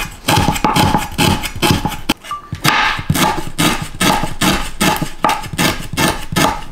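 Kitchen knife chopping lemongrass and shallots on a wooden cutting board: quick, even knocks of the blade on the wood, about three to four a second.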